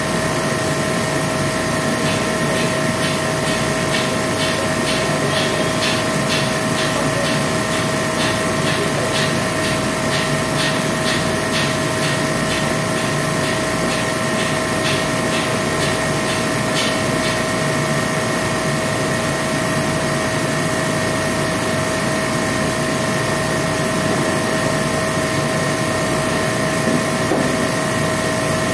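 Steady machine hum with several fixed tones. From about two seconds in to about seventeen seconds, a run of even, rhythmic strokes comes in, about three a second, like hand-tool work.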